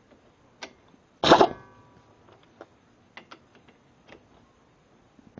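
Lug-nut socket and air ratchet handled by hand: a string of light metal clicks, and one loud knock with a short metallic ring about a second in.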